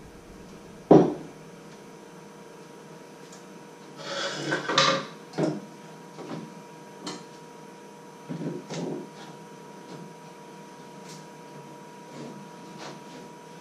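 Kitchen handling noises on a wooden counter: a sharp knock about a second in, a clatter of things being moved and set down around four to five seconds in, then scattered lighter knocks and taps, over a faint steady hum.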